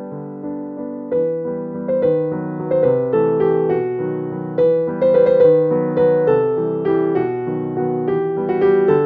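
Background piano music: a steady run of struck notes over lower chords.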